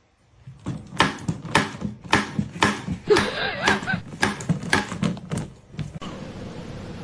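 A run of about a dozen thuds, roughly two a second, with a short whine-like call in the middle. It cuts to a steady hiss near the end.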